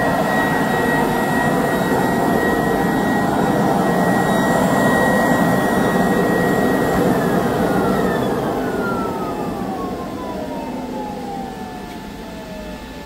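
CNC router's vacuum hold-down pump running with a loud rush and a steady whine, then switched off about seven seconds in. Two whines fall in pitch one after the other as it spins down and the noise fades.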